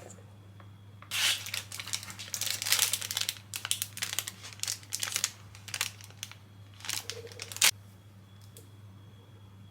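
Plastic packaging crinkling and being torn open by hand in irregular crackly bursts for several seconds, over a steady low hum.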